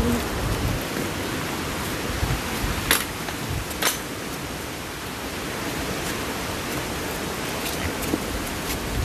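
Steady hiss of heavy rain falling, with two sharp taps about three and four seconds in.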